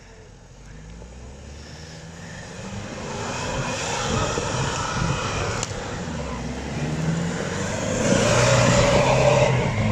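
Nissan Patrol's engine revving under load as it crawls up a snowy, muddy trail, growing steadily louder as it approaches and passes close. Its mud-terrain tyres churn through snow and slush.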